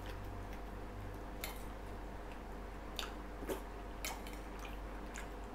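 A metal spoon clicks a few times against a ceramic soup bowl while someone eats and chews quietly, over a steady low hum.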